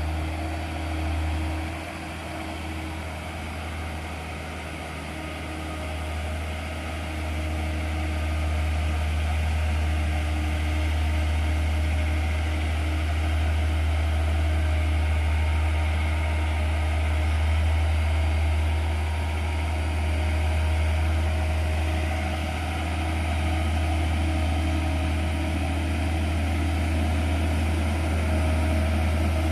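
Diesel engine of a loaded Hino truck labouring up a steep hairpin climb: a steady low drone that grows louder from about eight seconds in as the truck comes closer.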